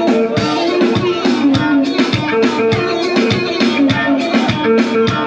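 Halay dance music playing loudly, with a steady, quick drumbeat under a melody line.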